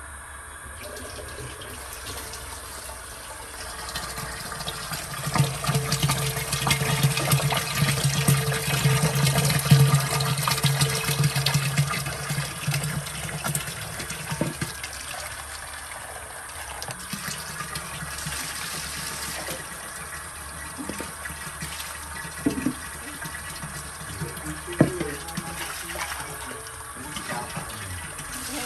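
Water pouring and splashing as it is scooped with a plastic dipper and poured into a stainless steel pot, loudest in the first half, with a few sharp knocks of the dipper and containers later on.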